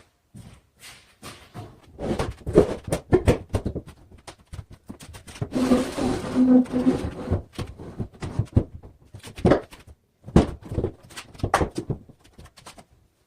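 Wooden kitchen base cabinets being handled and set in place: scattered knocks and bumps, with a rough rasping stretch of about a second and a half near the middle.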